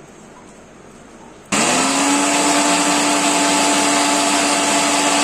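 Electric mixer grinder switched on about a second and a half in, spinning up quickly and then running at a steady high speed as it grinds ginger and turmeric into a fine paste.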